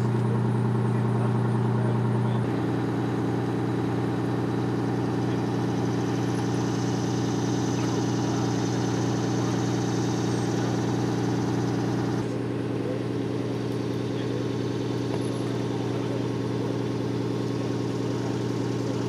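An engine idling steadily, a low hum of even pitch. It changes slightly about two and a half seconds in and drops a little in level about twelve seconds in, where the shot changes.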